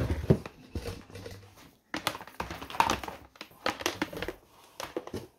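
Hands handling a plastic battery box and pulling thin sensor cable through it: an irregular run of knocks, clicks, scrapes and rustles, with a brief pause about two seconds in.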